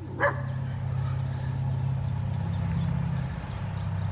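A motor engine running steadily with a low, even drone, while crickets keep up a constant high chirring.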